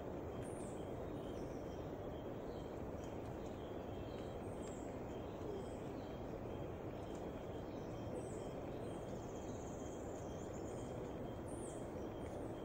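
Faint, high-pitched bird calls over a steady hiss of background noise: a few short falling chirps and a brief trill about nine seconds in.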